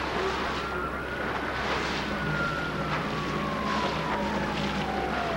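Steady wind and engine noise out on the water, with a low hum that strengthens about two seconds in. A faint whine slides slowly down in pitch through the second half.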